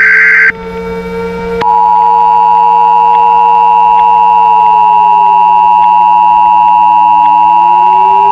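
Emergency Alert System tones: a loud buzzy burst of header data ends about half a second in, then about a second and a half in the steady two-tone attention signal starts and holds. Behind it a siren's pitch glides, falling slowly and rising again near the end.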